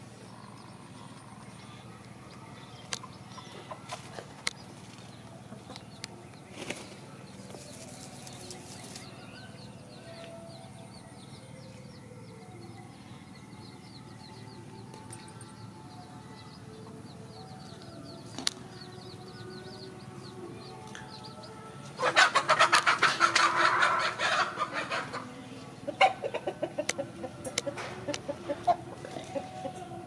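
A chicken clucking: a loud, rapid run of clucks for about three seconds past the middle, then a few scattered clucks, over faint steady background noise.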